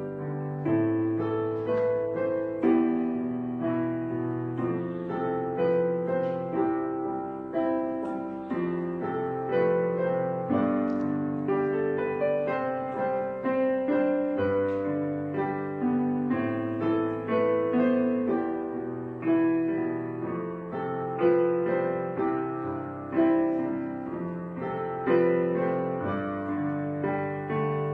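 Background piano music: a calm instrumental piece of struck notes and chords, each fading before the next, with a new attack about every second.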